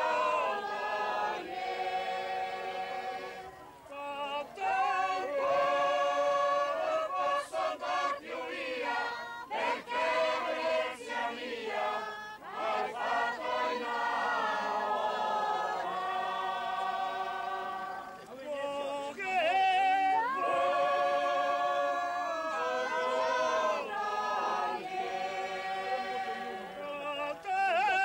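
A mixed group of men and women singing a song together in chorus, in held notes with brief breaks between phrases.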